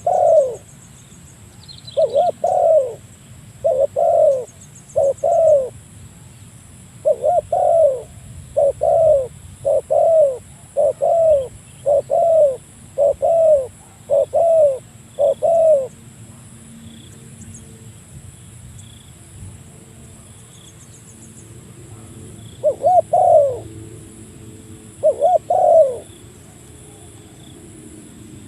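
Spotted dove (tekukur) cooing: a run of about a dozen short, loud coo phrases, roughly one a second, then a pause and two more coos near the end, calling out to a rival. A faint, steady high insect trill runs underneath.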